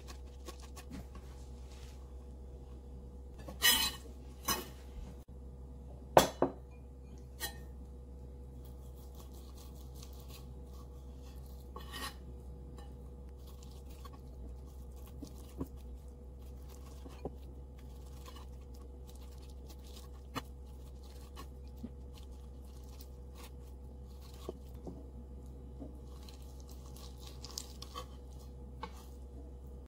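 Kitchen knife clicking and tapping on a wooden cutting board as raw shrimp are sliced in half, with two louder knocks of kitchenware about four and six seconds in. A steady low hum runs underneath.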